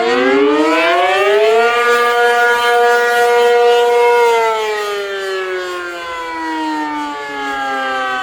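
ACA Penetrator-50 rotating tornado siren, with a 50 HP three-phase motor and an 8/12-port chopper, sounding the attack signal. Its pitch winds up to a held high tone about two seconds in, holds it, then falls away from about four seconds in.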